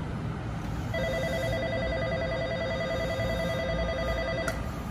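Railway platform's electric bell ringing steadily for about three and a half seconds, starting about a second in and cutting off suddenly near the end, over the low rumble of trains.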